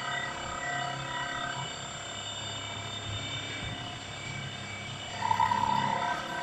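CNC gantry drilling-milling machine drilling a metal plate under coolant: a steady machine whine made of several held tones. It gets briefly louder about five seconds in.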